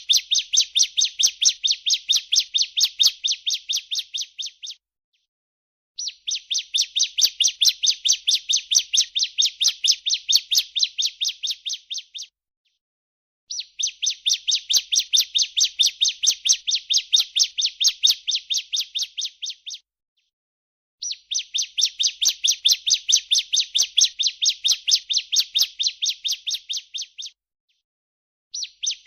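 Female ciblek (bar-winged prinia) giving its 'breeen' call: a rapid, even trill of high notes, about six a second, in runs of some six seconds. The runs are separated by pauses of about a second and a half, four and a half runs in all.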